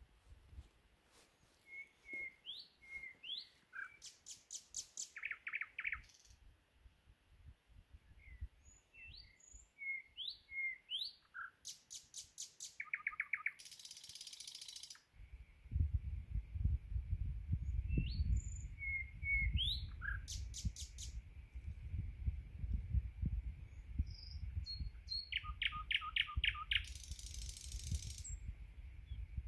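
Thrush nightingale singing in varied phrases: short whistled notes and upward slurs, fast clicking trills and harsh rasping rattles, with pauses between phrases. From about halfway a low rumble runs underneath.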